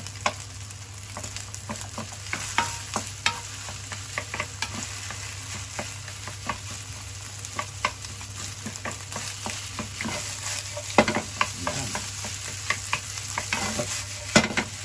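Rice and scrambled egg sizzling as they are stir-fried in a nonstick frying pan, a wooden spatula scraping and tapping against the pan throughout, with sharper knocks about eleven seconds in and near the end.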